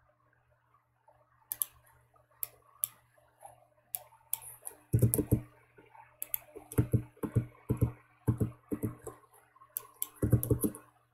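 Computer mouse and keyboard clicks: irregular single clicks at first, then quick runs of heavier clicks from about five seconds in.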